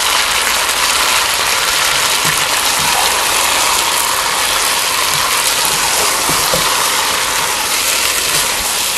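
Chicken with yogurt and spices sizzling steadily in a pot over high heat, as a wooden spatula stirs and scrapes through the mixture with a few light knocks.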